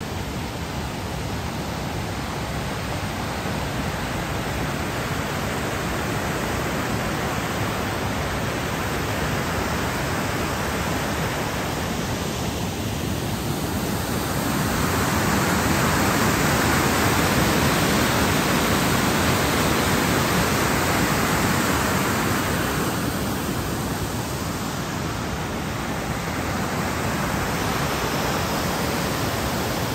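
Mountain torrent rushing over rocks: a steady wash of white water that grows louder about halfway through, then eases a little.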